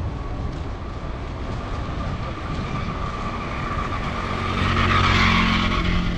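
A motor vehicle driving past on the road, its engine and tyre noise swelling to a peak about five seconds in, over a low rumble of wind on the microphone.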